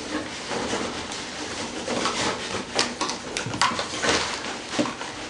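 Empty cardboard tubes rustling and knocking together in a plastic box as a Dalmatian roots through them with its nose, with irregular sharp clacks.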